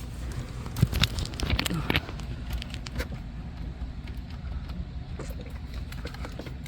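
A run of small clicks from the car stereo's buttons being pressed to enter the radio's anti-theft code, most of them about one to two seconds in, over a steady low hum.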